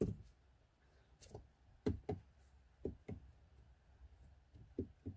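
About nine soft, irregularly spaced taps and knocks from someone working the car's infotainment controls, in a quiet car cabin with no music playing.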